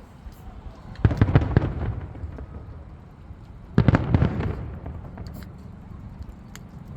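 Aerial fireworks bursting: a volley of several sharp bangs about a second in, and another near four seconds, each trailing off in a fading rumble.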